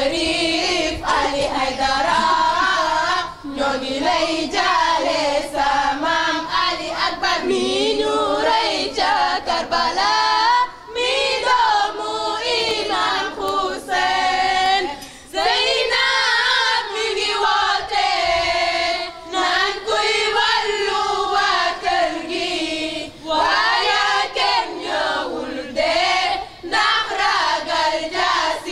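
A group of girls and women singing a latmiya, a Shia mourning chant for Imam Hussein, in unison, phrase after phrase with short breaks between.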